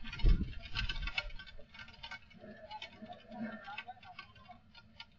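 Strong wind buffeting a CCTV camera's microphone, with a low rumbling gust just after the start, and scattered ticking and rattling clicks throughout.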